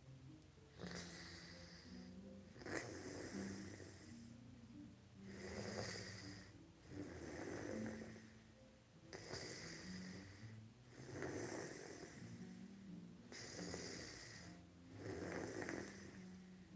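A person snoring in sleep, one rasping breath every two to three seconds.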